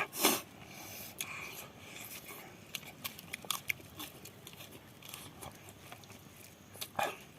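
Eating sounds from a mukbang, chewing chicken curry: scattered short, wet clicks and smacks. A louder noise comes just after the start and another near the end.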